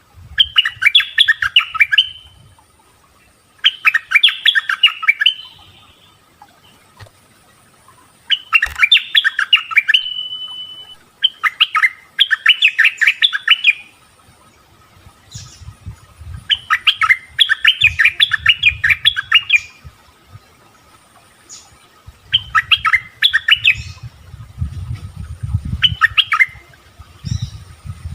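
Bulbul (merbah) song: short bursts of quick, bubbly chirping notes, each about two seconds long, repeated every three to four seconds. A low rumble runs under the later phrases.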